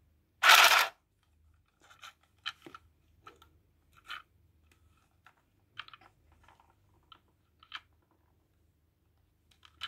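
Small clicks and scratchy handling sounds from a handheld mini sewing machine being fiddled with and adjusted by hand, its motor not running; one loud short rustle comes about half a second in.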